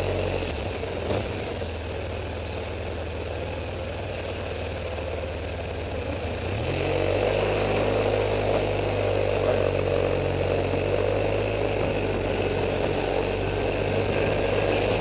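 Honda Silver Wing scooter's engine running at low speed, then picking up revs about six and a half seconds in as it accelerates, with steady wind and road noise.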